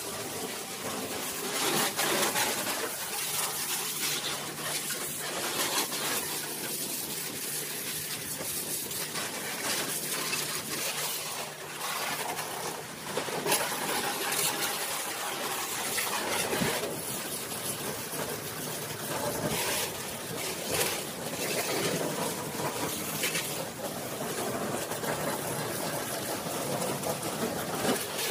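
High-pressure washer jet spraying water onto a car and the wet floor: a steady hiss with splashing. A low steady hum runs beneath it for several seconds in the first half.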